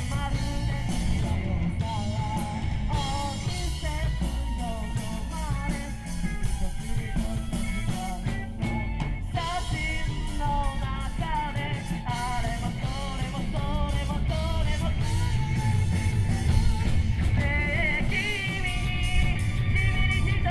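Student rock band playing live: a lead singer over drums, bass, guitars and keyboard.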